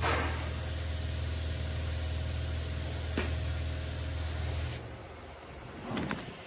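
Hot melt glue handgun with a swirl spray nozzle, hissing steadily as compressed air swirls the glue out in a spray, over a low hum. Hiss and hum cut off together about five seconds in. There is a single click near the middle and a short knock near the end.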